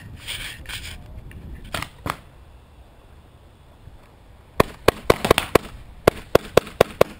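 Paintball pistol shots: two single pops a little under two seconds in, then a rapid string of about ten shots, roughly four a second, starting about four and a half seconds in.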